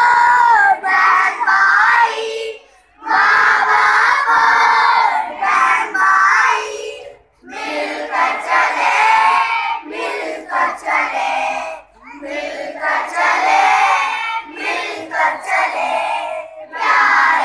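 A large group of children singing an Urdu Christian children's song together, loudly, in phrases broken by three short pauses.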